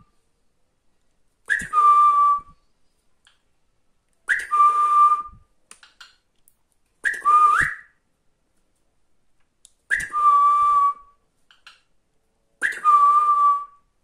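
A short whistled phrase repeated five times, about every three seconds: each is a quick upward note followed by a steady held tone lasting under a second, with a breathy hiss around it. The fourth phrase ends on a rising slide.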